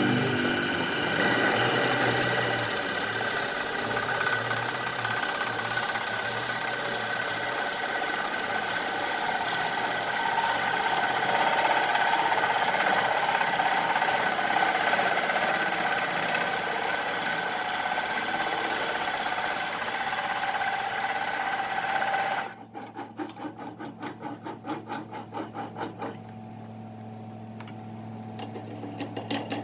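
Wood lathe running with a tool working the spinning wood, a steady, loud scraping noise over the motor's hum. About 22 seconds in the cutting stops abruptly, leaving a quieter motor hum that pulses for a few seconds and then steadies.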